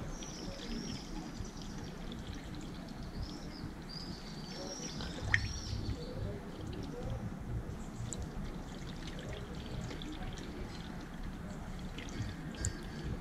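Deionized water poured from a plastic bottle into a motorcycle's coolant hose, running and trickling steadily as the cooling system is flushed. A single sharp click comes about five seconds in, and high chirps, birdsong-like, are heard in the first half.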